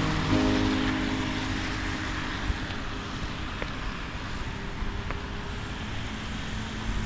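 Background music fades out about a second in, leaving steady outdoor street noise with a low rumble of traffic and a few faint ticks.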